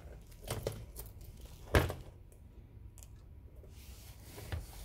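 Light handling noise on a workbench: a few short clicks and knocks as a circuit board and small parts are moved about, the sharpest one a little under two seconds in, over a low steady hum.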